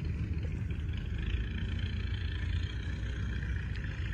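New Holland T1510 compact tractor's three-cylinder diesel engine idling steadily.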